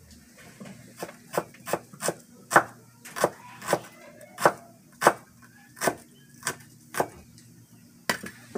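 Kitchen knife chopping onion on a wooden cutting board: about a dozen sharp knocks of the blade on the board, roughly two a second, starting about a second in.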